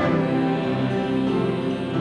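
Gospel song performed by a church choir with accompaniment, here a passage of held chords that change every half second or so, with little singing heard.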